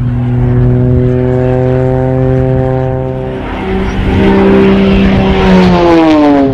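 Piston-engine propeller aircraft flying past with a steady engine drone. Its tone shifts about halfway through, and near the end the pitch falls as it passes by.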